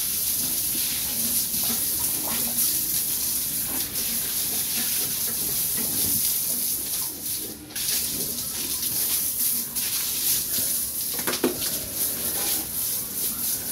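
A fine jet of water hissing steadily as it is sprayed over pigs to bathe them, briefly cut off a little over halfway through.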